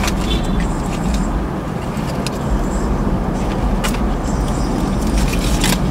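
Steady low hum of a car idling, heard from inside the cabin, with a few short light clicks from a plastic fork being handled.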